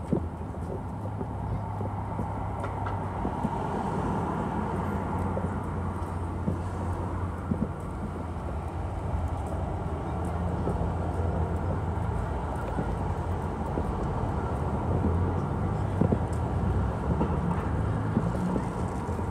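City street ambience: a steady hum of road traffic, with a couple of brief knocks.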